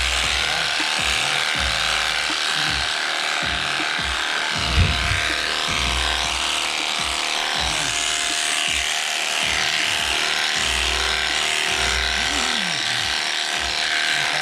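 Electric sheep-shearing handpiece running steadily, its cutters buzzing through the fleece, with one brief sharp knock just under five seconds in.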